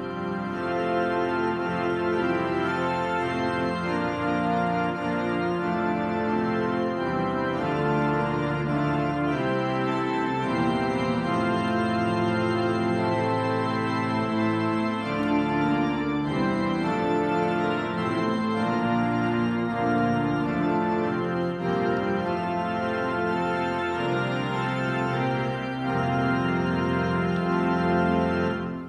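Organ playing a postlude of held chords that change every second or two, starting suddenly out of near silence.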